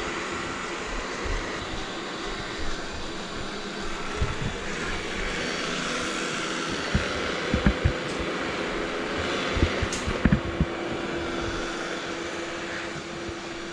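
Roborock robot vacuum running, its suction motor giving a steady whooshing whir, with a few low knocks around the middle and a steady hum joining about ten seconds in.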